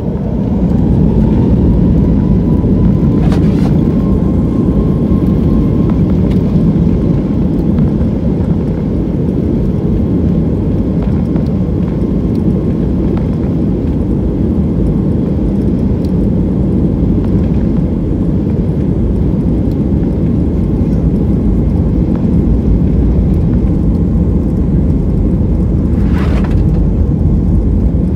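Airliner jet engines heard from inside the cabin, spooling up to takeoff thrust: the noise climbs sharply in the first second or two with a whine rising slightly, then holds as a loud, steady rumble as the jet accelerates down the runway on its takeoff roll.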